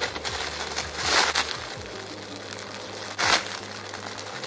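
Clear plastic packaging around a squishy toy crinkling as it is handled, with two louder crinkles, one about a second in and one about three seconds in, over background music.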